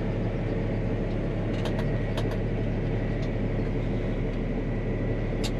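Tractor engine heard from inside the cab, running steadily while pulling tillage equipment: an even low drone with a faint steady whine and a few light clicks.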